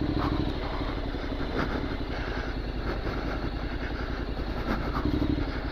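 Honda NC750X DCT's parallel-twin engine running steadily at low revs as the motorcycle rolls slowly along a rough dirt track.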